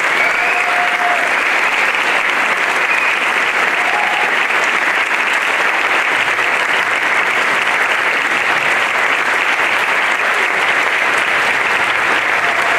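Audience applauding steadily at the end of an orchestral performance.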